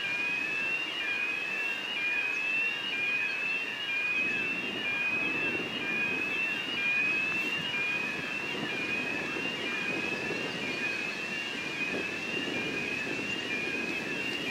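VL80S electric locomotive and its passenger train approaching, a low rumble that grows from about four seconds in. Over it, a short high rising tone repeats a little more than once a second throughout.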